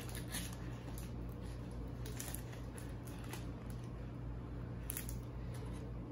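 Faint chewing of a bite of soft chocolate creme-filled sweet roll, with a few soft ticks over a steady low hum.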